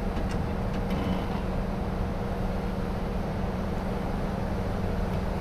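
An engine running steadily at low speed, with a few faint clicks about a second in.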